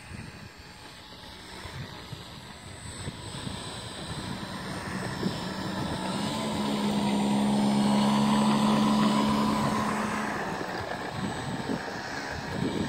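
Electric motor and propeller of a 1.40 m GeeBee R3 radio-controlled model plane, running with a steady buzzing tone that grows louder to a peak about eight seconds in, then fades.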